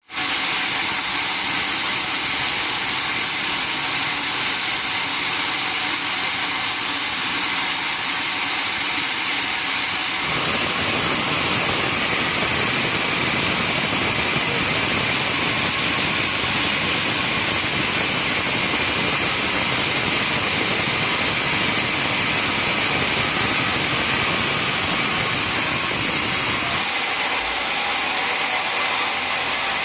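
Sawmill machinery running steadily: a loud, even mechanical noise with a high steady whine over it. The lower part of the sound thickens about ten seconds in and thins again near the end.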